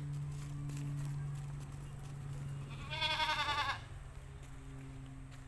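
A goat bleats once, a wavering call a little under a second long, about three seconds in. Under it runs a steady low hum.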